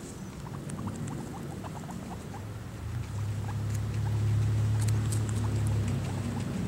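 Baby guinea pigs nibbling at a cucumber, with small sharp crunching clicks and short high chirps in the first two seconds. From a little over two seconds in, a steady low hum swells up and becomes the loudest sound.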